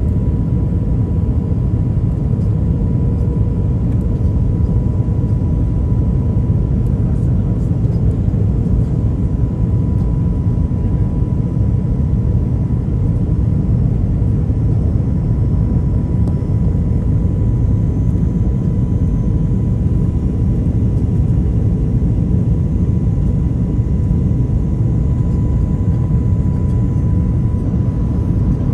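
Cabin noise of an Airbus A330-300 with Rolls-Royce Trent 700 engines on final approach, heard from inside the cabin over the wing: a steady low rumble of engines and airflow with a faint constant whine on top.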